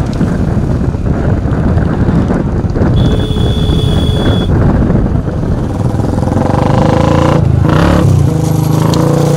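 Motor vehicle engines running loudly, with a brief high steady tone about three seconds in.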